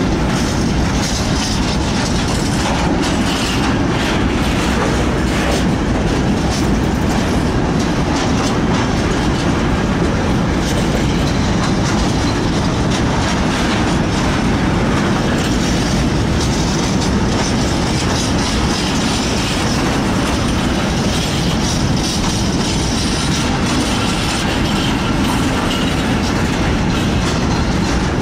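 A freight train's high-sided wagons rolling steadily past at close range, a continuous rumble of steel wheels on rail with clicking from the wheels crossing rail joints.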